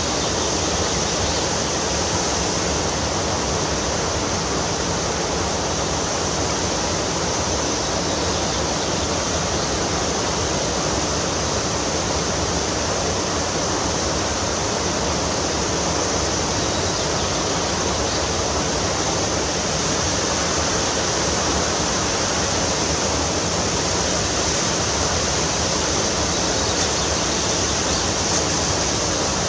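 Fast-flowing water rushing steadily, an even noise that does not change.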